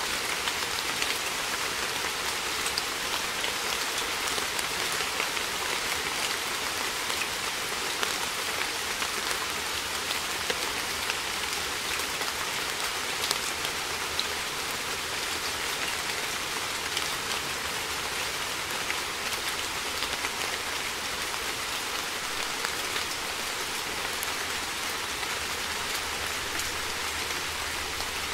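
Steady rain falling, an even hiss with many scattered sharper drop ticks.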